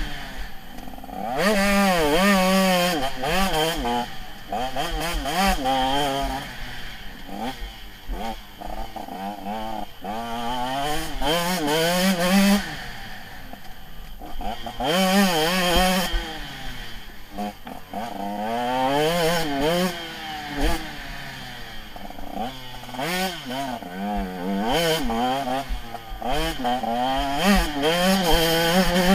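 Motocross bike engine heard from on board, revving up and falling back again and again as the rider accelerates, shifts and slows around a dirt track. Rushing hiss comes and goes between the revs.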